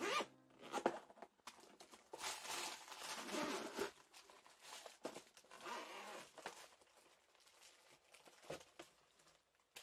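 Zipper of a hard EVA carrying case being pulled open in several rasping pulls, the longest lasting about two seconds, with some crinkling of plastic wrap.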